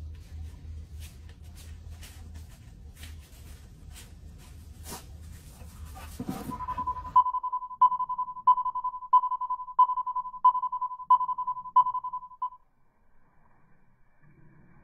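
Electronic beeper on a remote dog training collar sounding its tone signal: about nine evenly spaced beeps of one steady mid-pitched tone, roughly one and a half a second, starting about halfway through and stopping about two seconds before the end. Before the beeps, a low rumble with scattered sharp clicks.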